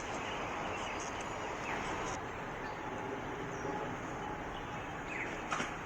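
Steady city street ambience with a constant hum of traffic, and a few faint, short chirps scattered through it.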